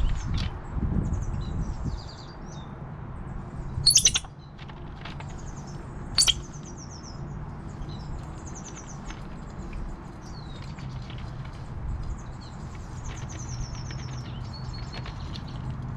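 Small birds chirping, with quick high trills repeating throughout. Two sharp clicks or knocks cut through, the louder one about four seconds in and another about two seconds later, over a steady low hum.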